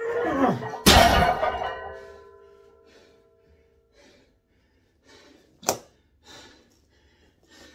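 A heavily plate-loaded steel barbell clanging down onto a power rack's steel safety arms about a second in, the metal ringing on and fading over a couple of seconds, after a lifter's grunt. Heavy breathing follows, with one sharp knock about six seconds in.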